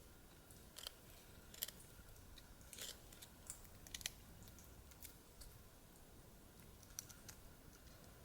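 Faint, irregular sharp clicks and snaps, about a dozen spread over several seconds, against near silence.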